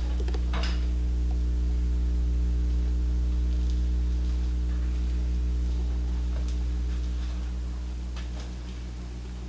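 A steady low machine hum that fades away over the last couple of seconds, with a few light ticks over it.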